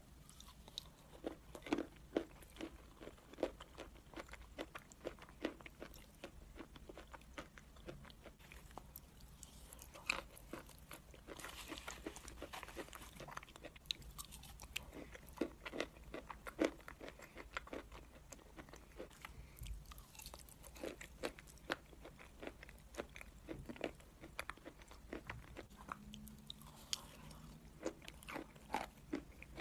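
A person biting and chewing mouthfuls of crumbly grey clay, with many small crunches at an irregular pace.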